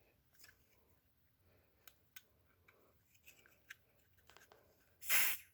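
Light handling clicks and rustles, then about five seconds in a short hiss from a Smoke Sabre aerosol can, a quick puff of test smoke sprayed at the smoke detector. No alarm sounds, since this ionization detector does not respond to the spray.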